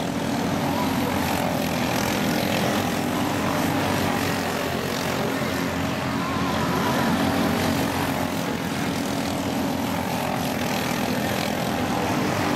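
Small single-cylinder engines of two quarter-midget race cars running at racing speed around a small oval, a steady engine drone whose pitch wavers slightly as the cars go around.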